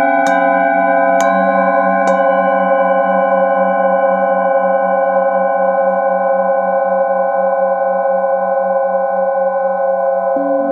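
Metal singing bowls struck with a mallet three times in the first two seconds, then left ringing: several steady overlapping tones, the lowest with a slow wavering pulse. A new bowl tone comes in near the end.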